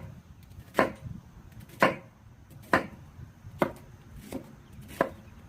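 Kitchen knife chopping a red onion on a plastic chopping mat, sharp strokes about once a second.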